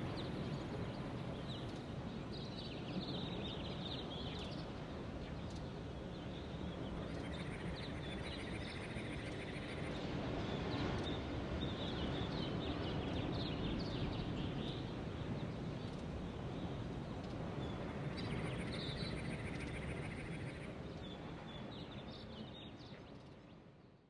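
Birdsong ambience: scattered bird chirps over a steady background hiss, with a fast pulsing trill heard twice, fading out near the end.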